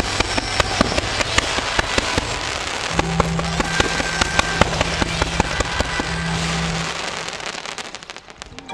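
Fireworks display going off in a dense barrage of sharp pops and crackles over music with sustained bass notes; the bursts thin out and fade about seven seconds in.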